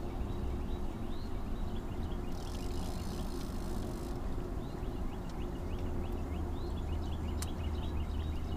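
Open-air river ambience: a steady low wind rumble with a faint steady hum under it, and many light, quick chirps or ticks throughout, with one sharp click near the end.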